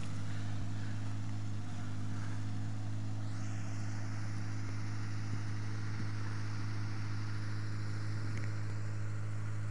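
Suzuki Samurai engine running steadily at low revs as the 4x4 crawls through a muddy ditch, one even drone with no revving.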